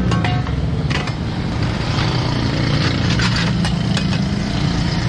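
Motor vehicle engine idling steadily in roadside traffic, a low even drone, with a few sharp clicks and clinks over it.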